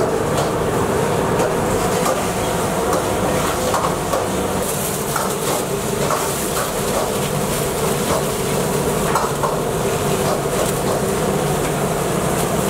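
Steady hum and hiss of a commercial kitchen, with a brighter crinkle of aluminium foil being handled about five seconds in, and a few light ticks of handling.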